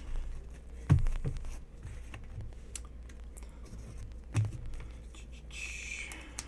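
Stacks of trading cards in plastic sleeves and toploaders being handled and sorted on a table: a few soft knocks as stacks are tapped or set down, and a short plastic rustle near the end as a handful of sleeved cards is shuffled.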